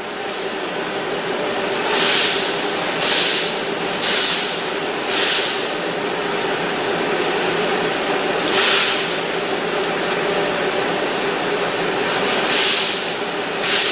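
Hyundai Elantra GT running at idle, a steady whir with a faint steady hum. Short hissing surges come over it: four about a second apart starting about two seconds in, then a few more later.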